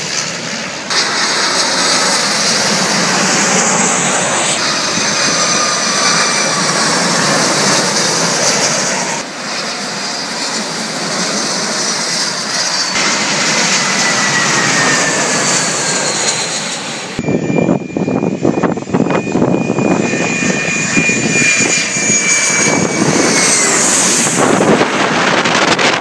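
Airliners on final approach passing low overhead, one after another, their engines running with a high whine that slides down in pitch as each goes by. In the later part wind buffets the microphone heavily.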